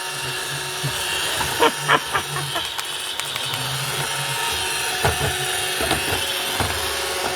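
iRobot Roomba robot vacuum running with a steady whirring hum, with a few light knocks along the way.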